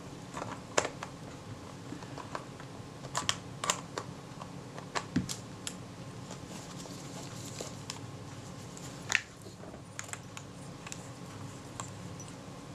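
A scatter of small, sharp metallic clicks and taps, loudest about a second in, around three to four seconds in, and about nine seconds in. They come from a Retina-Xenar lens being fitted onto and handled on a Kodak Retina Reflex IV camera body.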